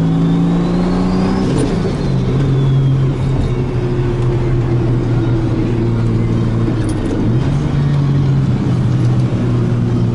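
Turbocharged car engine running under way, its note dropping in pitch once about a second and a half in, as with an upshift, and shifting again near three-quarters of the way through. A faint whistle rises and then falls over the first few seconds.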